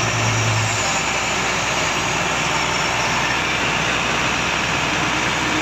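Truck engine running the hydraulics of a Fassi F245A truck-mounted knuckle-boom crane while the boom is extended on its third control lever: a loud, steady mechanical noise, with a low hum that stops just under a second in.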